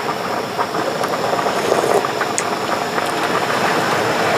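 Pot of budae-jjigae (Korean army stew) bubbling and crackling as it heats, not yet at a full boil.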